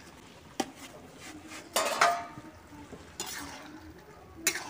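Steel spatula stirring and scraping in a steel kadai, with a few sharp metallic clinks and scrapes. The loudest comes about two seconds in and rings briefly.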